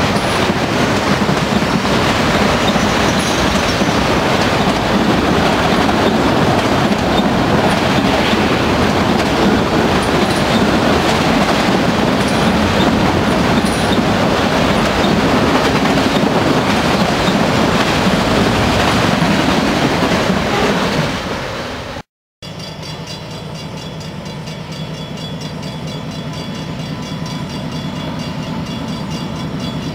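Freight train of autorack cars rolling past close by: steady wheel-on-rail noise with the clickety-clack of wheels over rail joints, fading and then cutting off abruptly about two-thirds of the way in. After the cut comes a quieter, steady sound with several held tones that slowly grows louder.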